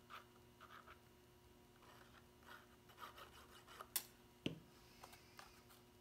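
Near silence with faint rustling and scratching of cardstock being handled and folded, broken by a sharp click about four seconds in and a light knock just after, as a plastic glue bottle is set down on a cutting mat.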